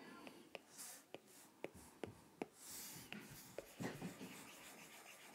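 Faint taps and short scratchy strokes of a stylus on an iPad Pro's glass screen while shading: light clicks about every half second, with a couple of brief hissy strokes.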